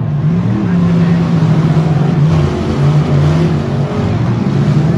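Several stock V8 demolition derby car engines running and revving at once, their pitches rising and falling over one another.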